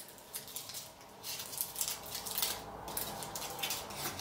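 Small paper slip from a fortune cookie being unfolded by hand: light, irregular rustling and crinkling.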